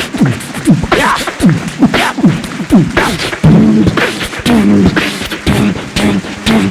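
Beatboxing: a performer's voice making drum hits and quick falling bass swoops in a steady rhythm, with a hummed tune held over the beat in the second half.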